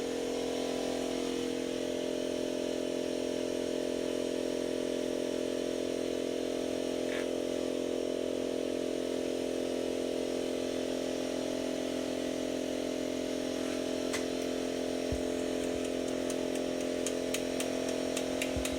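Oxy-acetylene torch burning with a steady, unbroken hum, used to heat the seized hub. A few sharp metallic clicks come near the end.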